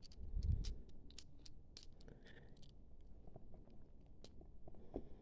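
Small metal clicks and scrapes of hand tools working on a lock body, a few ticks a second with irregular spacing, and a soft low thump about half a second in.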